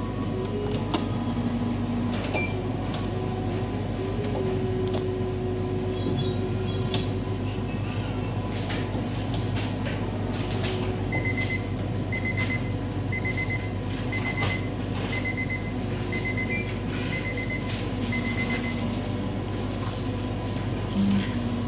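Cornley K-Lite 3 electrolyte analyser running a sample measurement: scattered mechanical clicks over a steady low hum. In the middle stretch comes a regular run of short beeps, about one every 0.7 s.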